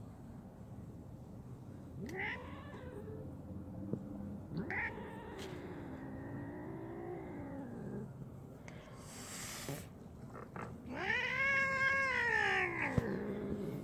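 A domestic cat yowling in protest at being handled, with three drawn-out caterwauls. The last, about eleven seconds in, is the loudest; it rises and then falls in pitch.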